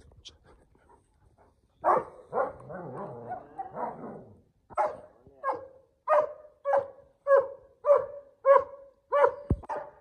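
German Shepherd barking: a couple of sharp barks about two seconds in, a stretch of excited barking and yelping, then a steady run of about nine barks, a little under two a second, with a dull thump near the end.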